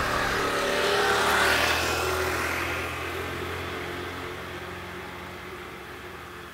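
A passing vehicle's engine hum, fading away steadily into the distance.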